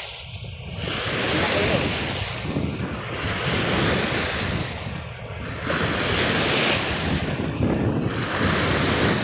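Choppy lake waves breaking and washing against the rocky shore, swelling and fading every couple of seconds, with wind buffeting the microphone.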